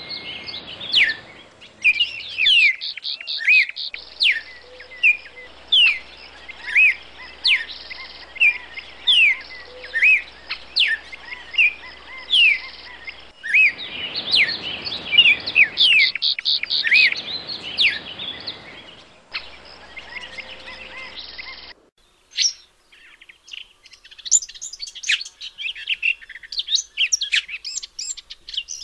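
Several songbirds singing and calling: quick down-slurred whistles and rapid trills over a faint hiss. The background changes abruptly a few times, as if spliced, and in the last third the birds give way to a busier chorus of short chirps.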